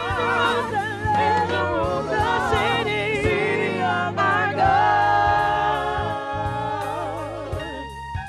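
Gospel singing by several voices together with heavy vibrato over a steady bass, ending on a held chord that fades out near the end.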